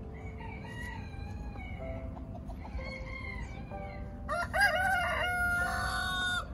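Rooster crowing, a loud call starting about four seconds in and lasting about two seconds, after fainter, more distant calls earlier.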